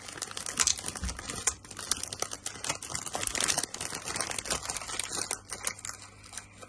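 Plastic candy bag crinkling as it is handled and opened, a dense run of crackles and rustles.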